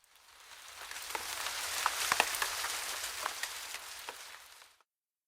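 Rain sound effect: steady falling rain with distinct single drops hitting, fading in over the first couple of seconds and fading out near the end.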